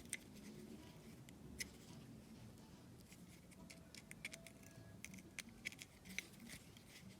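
Faint, scattered light clicks and ticks of small parts and tools being handled while a cable is fitted and clamped.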